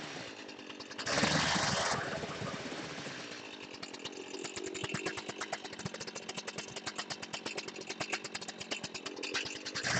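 Two-stroke chainsaw revving as it cuts into a wooden plank in a short burst about a second in. It then idles with a rapid, even popping beat, and revs into the wood again at the very end.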